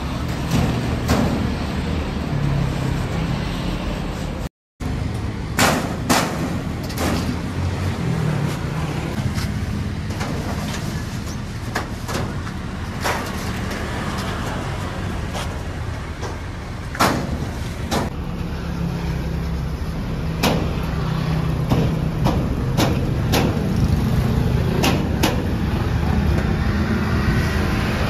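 Scattered sharp knocks and clanks of steel-plate wardrobe panels and shelves being handled and fitted into the wardrobe frame, over a steady rumble of street traffic.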